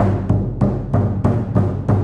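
Shamanic drum beaten in a steady, even rhythm of about three strokes a second. Each stroke is a deep boom that rings on into the next.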